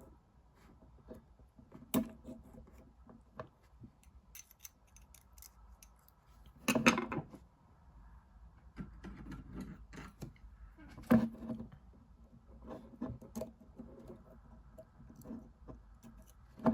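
Scattered small clicks and taps of tools and tiny metal parts handled on a workbench as a carbon brush is taken out of a model locomotive's motor, with louder knocks about two, seven and eleven seconds in.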